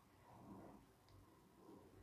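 Near silence, with a faint low hum and a small click about a second in.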